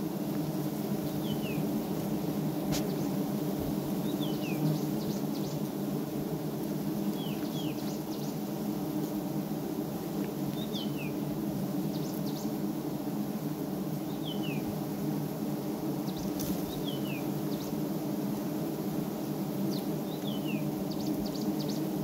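Steady hum of many wild honeybees buzzing around their open comb. A bird repeats a short call of two quick falling notes about every three seconds over it.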